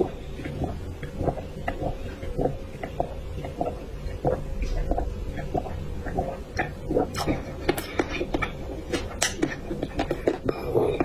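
Close-miked chewing and wet mouth sounds of someone eating: irregular smacks and clicks several times a second, growing sharper and crisper in the second half.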